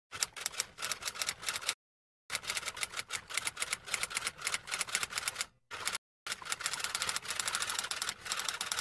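Typewriter sound effect: rapid clacking keystrokes in runs, stopping briefly twice, as text is typed out on screen.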